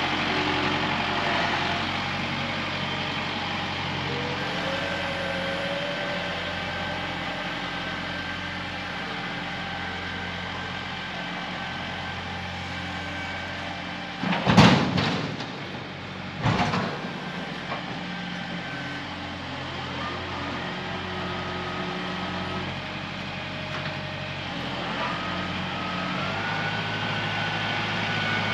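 A vehicle engine running steadily throughout. About halfway through come two loud, sudden noises about two seconds apart.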